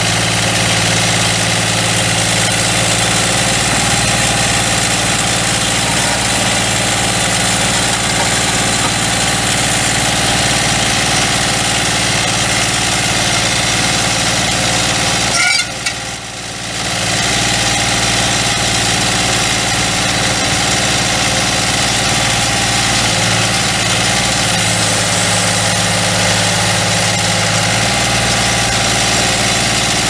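Deutz F3L1011F three-cylinder diesel engine of a Vermeer LM42 utility plow running steadily, with a brief dip in level about halfway through.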